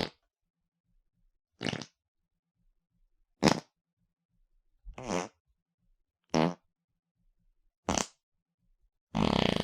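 Fart sound effects: six short, separate farts about a second and a half apart, then a longer fluttering one starting near the end.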